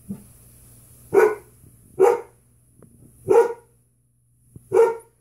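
Dog barking four times, single deep barks about a second apart.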